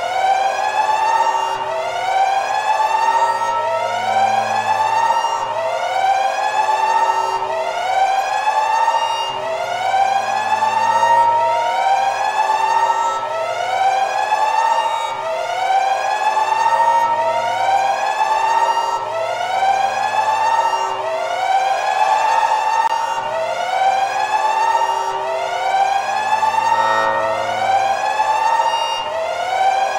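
Looped siren-style alarm sound effect: a whoop that rises in pitch and levels off, repeating about once a second over a low hum.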